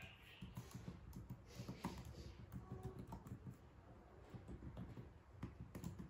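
Typing on an HP ProBook laptop keyboard: a quick, irregular run of key clicks.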